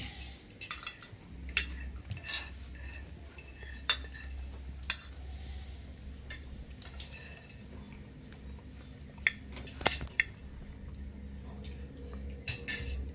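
Metal spoon clinking and scraping against a china plate during eating, in scattered sharp clicks a second or more apart, over a low steady hum.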